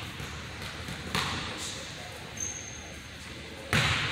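Basketball dribbled on a hardwood gym floor: two sharp bounces about two and a half seconds apart, each echoing in the large hall. A short thin high squeak comes between them.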